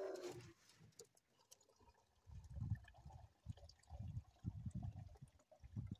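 Water poured from a jug into a container, with low, uneven glugging from about two seconds in. A brief whine right at the start.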